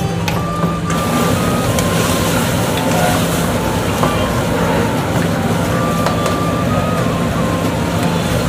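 Gravy poured into hot oil in an iron pan sizzling hard over a commercial gas burner, the hiss getting louder about a second in, with the burner running under a steady low hum.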